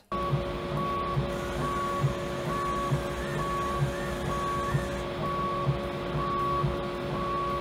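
Wisepro auto-refill filament buffer's low-powered feed motor running against snagged filament held by an AMS Saver snag cutter: a steady mechanical whine with a higher tone pulsing on and off about once a second and soft low pulses about twice a second. The motor is too weak to pull the filament through the snag cutter.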